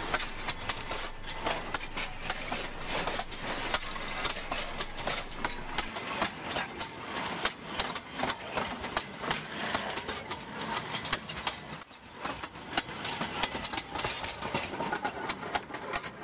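Freight wagons of a narrow-gauge railway rolling past at track level: a steady, noisy rumble with many rapid, irregular clicks.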